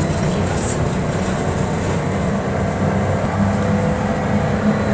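Steady rumble and hum of a moving trolleybus.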